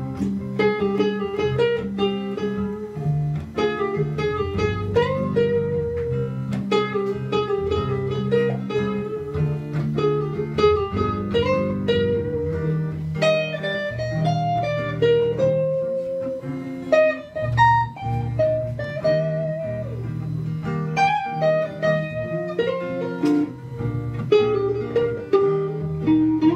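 Electric guitar playing a lead solo of single picked notes over a simple two-chord backing track.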